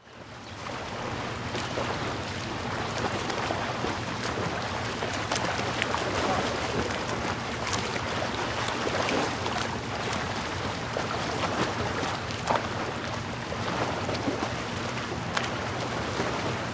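Bubbling, churning water: a steady hiss of water with many small bubble pops and clicks, fading in over the first second.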